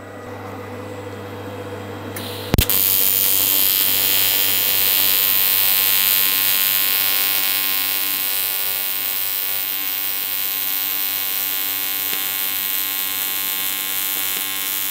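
A low hum, then about two and a half seconds in a TIG welding arc strikes with a sharp crack. It settles into a steady electric buzz with a hiss as the torch runs a bead on the aluminium crankcase casting, on an R-Tech TIG261 AC/DC inverter welder.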